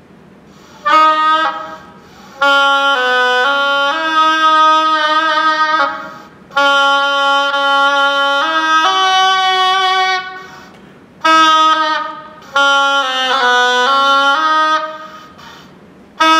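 Oboe playing a slow, simple melody in its low register, in phrases of held notes with short breaks between them.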